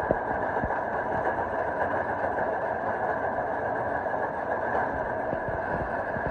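Grain crusher running steadily as grain is fed in, crushing it into feed, with a few dull knocks near the start and near the end.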